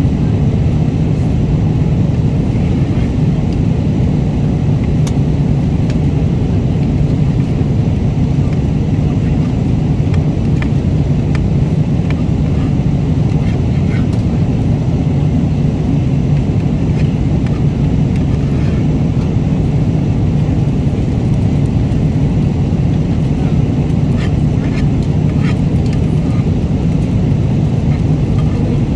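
Airliner cabin noise in flight: a deep, steady, even rush. Light clicks and taps come now and then.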